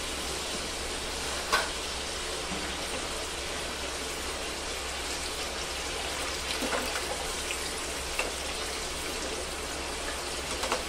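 Sweet potato fries deep-frying in hot oil, a steady sizzle; this is their second fry, as they turn brown and crisp. A slotted spoon clicks against the pan a few times, most sharply about a second and a half in.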